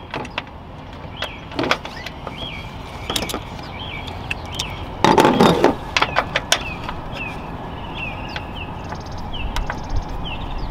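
A few sharp metal clicks and knocks from a 10 mm wrench loosening a ground nut at a car's fuse block, with a louder scraping rattle about five seconds in.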